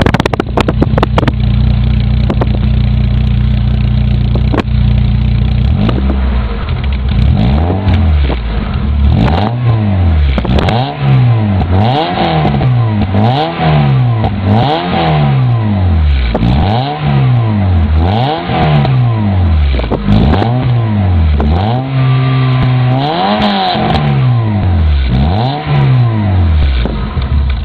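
Citroën Saxo Group N's four-cylinder engine through a Supersprint exhaust with no silencer, idling steadily, then revved over and over in quick blips about once a second, with a short hold at higher revs a little past two-thirds of the way through.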